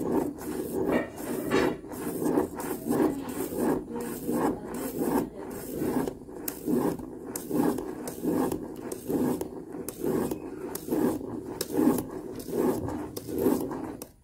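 Plastic spirograph gear rolling around inside its toothed ring while a pen traces on the paper: a scratchy rubbing that pulses about twice a second as the gear goes round, stopping suddenly at the end.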